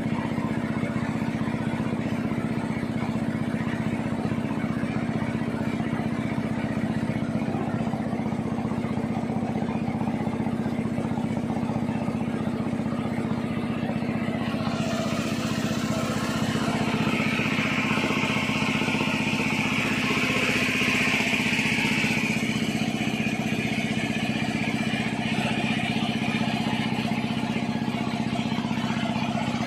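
A boat's motor running at a steady speed under way, with water rushing along the hull; for several seconds midway the rush of water grows louder.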